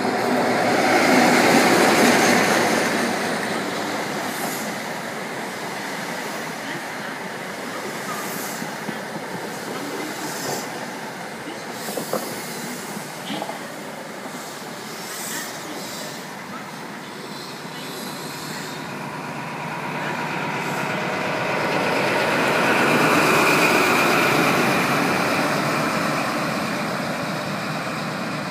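East Midlands Trains Class 43 HST running into the station: the leading diesel power car passes loudly at the start, then the coaches roll by with wheels clicking over the rail joints, and the rear power car's engine swells again about twenty seconds in. A steady rush from the nearby cooling towers lies underneath.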